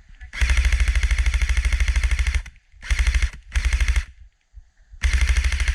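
Airsoft rifle firing on full auto in four bursts of rapid, evenly spaced shots: one long burst of about two seconds, two short bursts, then another starting near the end.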